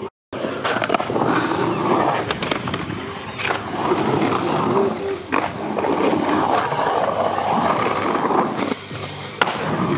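Skateboard wheels rolling on a concrete bowl: a continuous rolling rumble that swells and eases as the rider carves around the bowl. A few sharp clacks come through, and the sound cuts out briefly at the very start.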